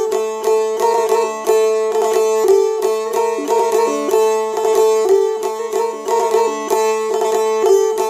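Çifteli, the Albanian long-necked lute, played solo with fast plucking: a folk melody moving over a steady drone note.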